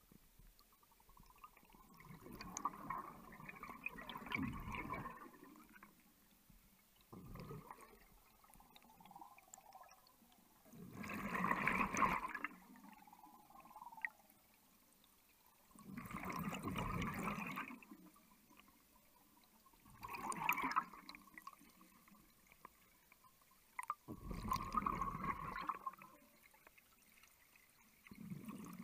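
A cave diver breathing underwater: a watery rush and gurgle of gas comes in bursts about every four seconds, a slow and regular breathing rhythm.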